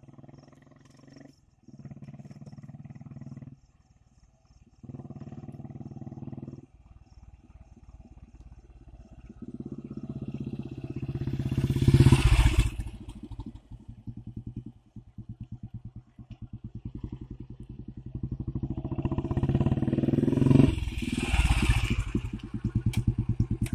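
Royal Enfield Bullet single-cylinder four-stroke motorcycle engine being ridden, faint and off-and-on at first. It rises to loud as the bike passes close about twelve seconds in, fades, and comes back loud again about twenty-one seconds in. Near the end it settles into a slow, even beat of separate exhaust pulses close by.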